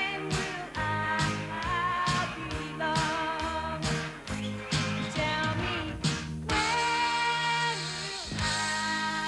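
Woman singing a pop-rock song into a microphone over a band backing of electric guitar and drums with a steady beat, holding a long note about two-thirds of the way through.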